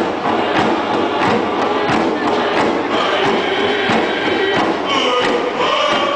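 A group singing a chant over a steady drumbeat, about three beats every two seconds, with hand drums struck in unison. Crowd noise from the dancers runs underneath.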